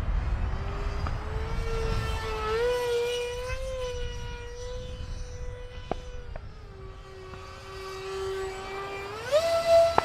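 Electric ducted fans of a Freewing SU-35 RC jet whining in flight. The pitch climbs a little about two and a half seconds in, eases down a touch around six and a half seconds, then rises sharply near the end as the throttle is opened.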